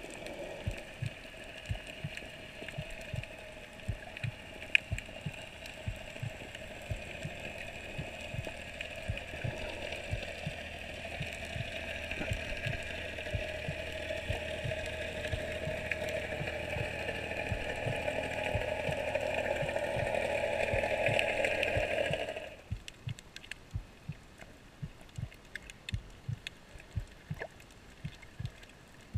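Underwater ambience heard through a snorkeller's camera. Irregular clicks and crackles run throughout, under a steady hum in two pitches that grows louder for about twenty seconds and then cuts off suddenly.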